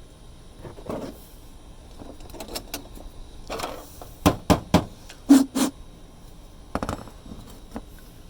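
Handling noise: a quick run of sharp clicks and knocks past the middle, then a double knock and a light tick near the end, as the quart oil bottle and new oil filter are picked up and set down.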